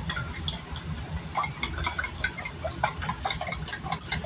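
Kitchen handling sounds: irregular light clicks and taps over a steady low hum.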